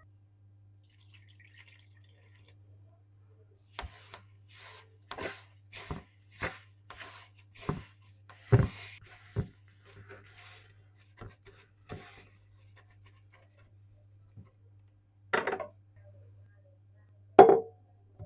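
A run of short light knocks and clicks, about one or two a second for several seconds. Then two louder knocks near the end, over a faint steady low hum.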